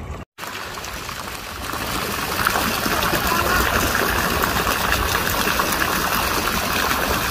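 Steady rush of running water in a swimming pool, cutting out briefly near the start, then growing louder about two seconds in.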